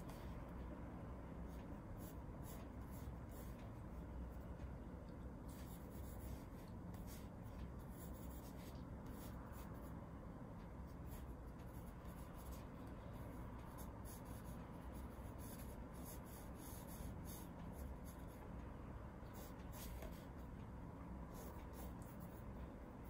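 Pencil scratching faintly on paper while drawing, in runs of short strokes with pauses between, over a steady low room hum.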